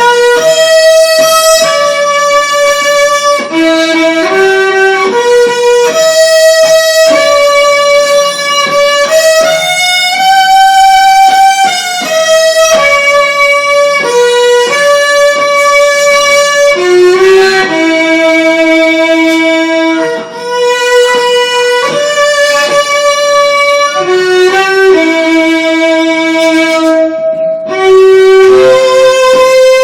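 Violin playing a slow melody of long, held notes.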